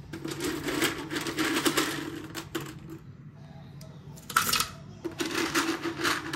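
Dry mixed pasta poured by hand into the stainless-steel bowl of a kitchen robot, a dense rattle of hard pieces hitting metal. It comes in two spells, with a short pause in the middle.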